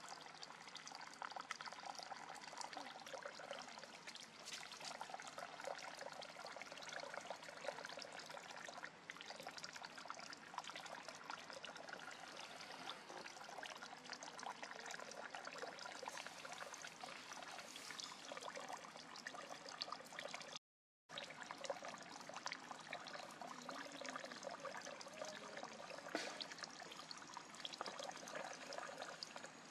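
Steady trickling, splashing water, with many small ticks and clicks through it. The sound cuts out briefly about two-thirds of the way through.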